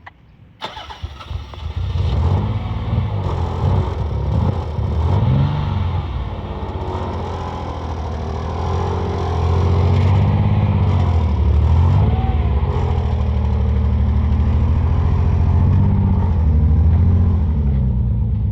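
Car engine starting about a second in, then running, revved up and down a few times before it settles into a steady, louder run.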